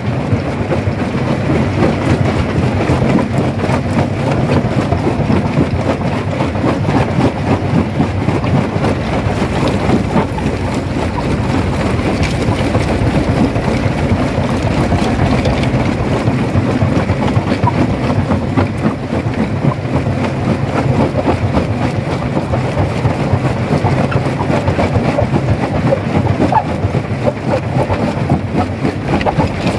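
Primary jaw crusher running and crushing rock: a steady mechanical rumble under a dense, continuous crunching and clatter of breaking stone.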